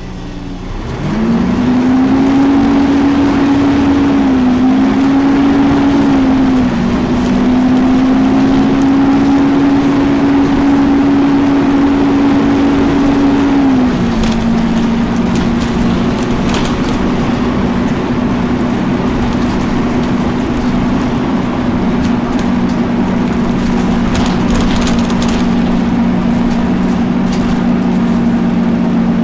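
Volvo B10BLE bus cooling fan cutting in about a second in with a loud, steady hum. The hum wavers briefly twice, then settles slightly lower in pitch about halfway through and holds.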